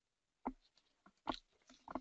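Three faint short clicks, about half a second apart to a second apart.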